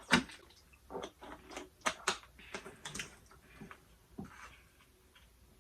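A run of small, irregular clicks and taps from objects being handled close to the microphone, thinning out near the end.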